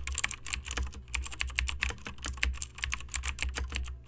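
Rapid, irregular clicking, several clicks a second, over a steady low hum.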